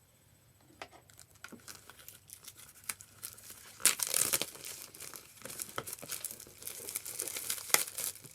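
Keyboard packaging being handled and opened, crinkling and tearing with scattered clicks: faint at first, louder from about four seconds in.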